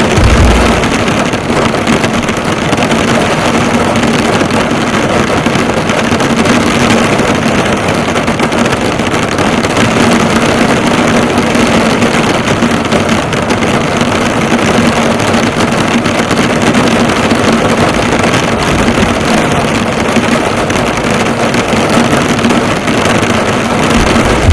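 Heavy rain drumming steadily on a car's body and bonnet, heard from inside the car, with a faint steady hum underneath and a brief low rumble at the start and again near the end.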